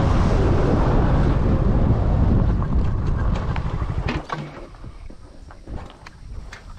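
Heavy wind buffeting on the microphone, a dense low rumble, which drops away suddenly about four seconds in, leaving scattered light clicks and rustles.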